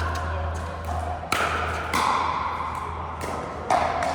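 Pickleball paddles hitting the ball in a rally: a run of sharp pops with a short ring, the loudest about a second in, two seconds in and near the end, over a steady low hum.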